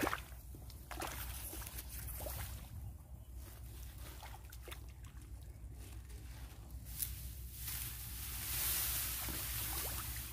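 Hand digging in the wet mud and water of a crab burrow: scattered small splashes, squelches and clicks, with rice stalks rustling. The rustling hiss grows louder from about eight seconds in.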